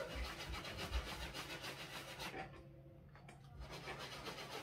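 Bristle brush scrubbing a Yeezy Boost 350 sneaker in quick, even back-and-forth strokes. The scrubbing pauses about two and a half seconds in, then starts again a second later.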